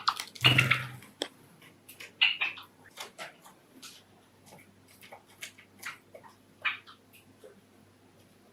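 Pet Java sparrows giving short chirps and calls among scattered small clicks and taps. A louder call comes in the first second.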